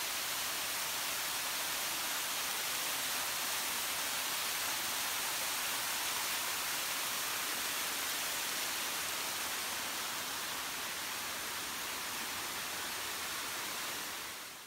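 Small waterfall cascading over rocks into a stream: a steady rush of falling and splashing water.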